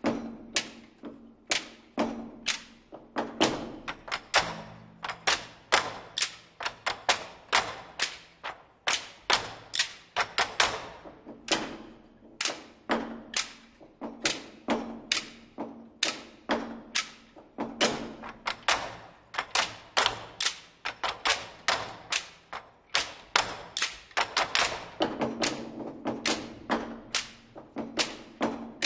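Ensemble of Chinese red barrel drums (tanggu) struck with wooden sticks, an even rhythmic pattern of sharp strokes at about three a second.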